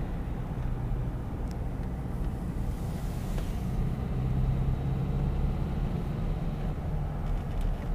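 Car engine and road noise heard from inside the moving car, a steady low drone that swells briefly about four seconds in.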